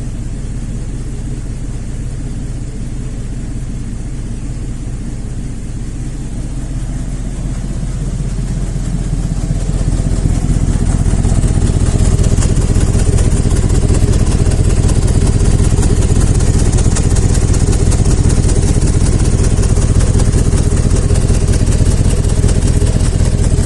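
2001 GMC's 5.3-litre V8 idling, then brought up to a higher, steady speed about eight to ten seconds in, with a high-pitched squeal growing along with it. The squeal is exhaust escaping between the left exhaust manifold and the cylinder head past broken manifold bolts, forced out by a plugged left-bank catalytic converter; the engine also misfires.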